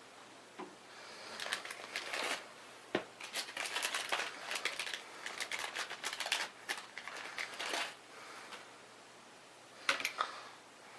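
Hands handling a small IDE/SATA adapter board and hard drive: a busy run of light clicks and rustling, then two sharper clicks near the end.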